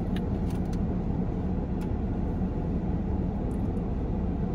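Steady low hum of a car running, heard inside its cabin, with a few faint clicks in the first second and one about two seconds in.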